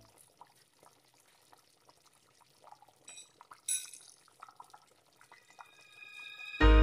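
Thick spaghetti meat sauce simmering in a pot: faint, scattered bubbling and popping, with one brief louder pop a little past the middle. Background music comes in near the end.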